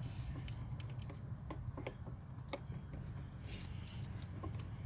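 Scattered light clicks and taps of hands working a plastic quick-disconnect radiator hose elbow and its retaining clip, over a steady low hum.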